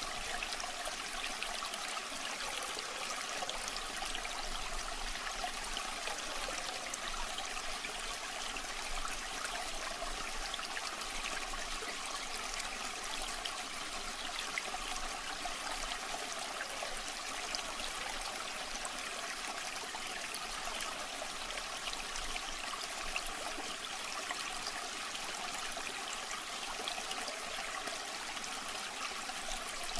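River water flowing and splashing steadily over stones, a constant bubbling rush with fine trickling detail.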